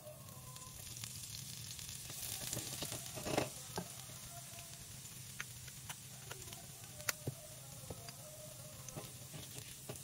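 Chopped garlic sizzling in hot oil in a nonstick frying pan. The sizzle swells over the first few seconds, loudest about three seconds in, then settles to a steady fry with a few sharp pops of spattering oil, and is stirred with a spatula.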